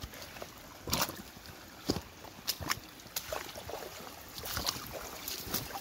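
Footsteps sloshing through shallow water and wet leaf litter, a stride at a time at an uneven pace.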